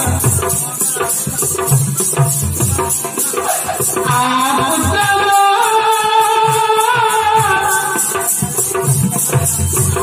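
Folk theatre music: a voice singing over drums and a shaker that rattles about three times a second, with one long held note in the middle.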